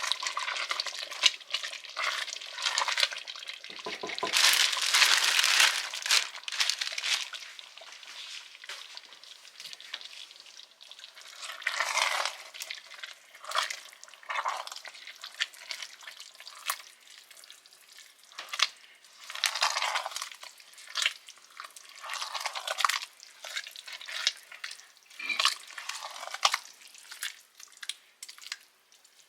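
Cooking in a hot pan: food sizzling while it is stirred, with clicks and scrapes of a utensil and irregular bursts of hissing. The loudest hissing comes about four seconds in.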